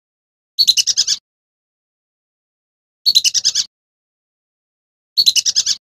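Lure recording of a male lesser whistling duck calling: three short bursts of rapid, shrill whistled notes, about two and a half seconds apart, with silence between.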